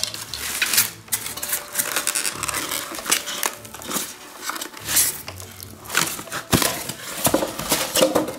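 Styrofoam packing being pulled and broken apart by hand to free a radio transmitter: irregular rubbing, scraping and squeaking of foam.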